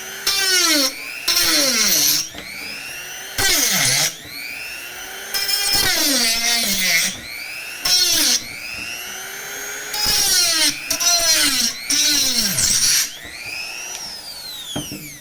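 Handheld rotary tool with a cutting bit sawing through PVC pipe: the motor whine dips in pitch each time the bit bites into the plastic and climbs back when it frees, with bursts of harsh high cutting noise. The motor slows and stops near the end as the cut is finished.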